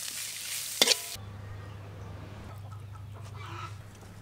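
Stir-fried vegetables and minced beef sizzling in a wok for about the first second, with one sharp click. Then a steady low hum, with faint chicken calls over it.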